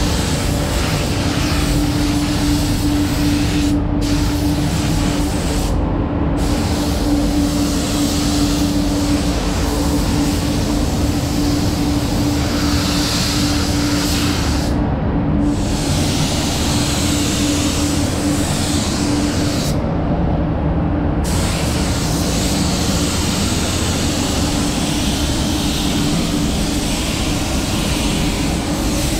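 Paint spray gun hissing as it sprays basecoat onto car panels. The hiss cuts out briefly four times where the trigger is let go. Under it runs the steady rumble and hum of the spray booth's ventilation.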